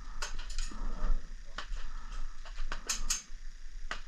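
Airsoft guns firing: about nine sharp, irregularly spaced cracks spread over a few seconds.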